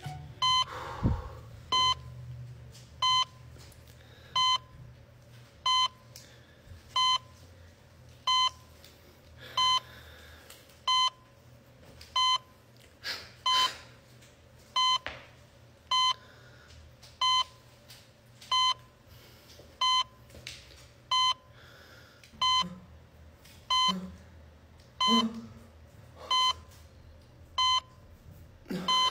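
Hospital heart-monitor beep: a short single pitched tone repeating steadily about every 1.3 seconds.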